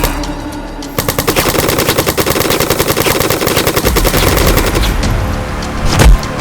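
Rapid automatic gunfire sound effect, a fast stream of shots lasting about four seconds, followed near the end by a single heavy boom.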